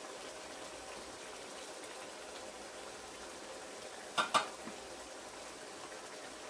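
Pot of beef keema and potato curry simmering steadily on the stove, with two quick knocks about four seconds in.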